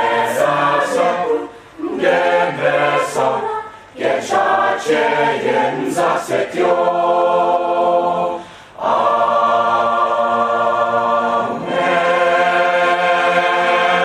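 A large mixed choir singing in parts, with no instruments heard. Shorter moving phrases in the first half give way to long held chords, each sustained for two to three seconds with brief breaks between them.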